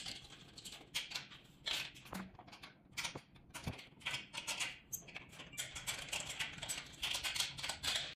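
Hands handling and fitting the metal rails and brackets of a conveyor: irregular clicks, taps and scrapes of metal parts, several a second.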